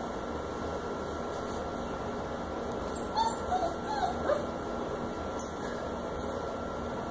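Puppies giving a few short, high whimpers about three to four seconds in, over a steady background hiss, with a sharp click about a second later.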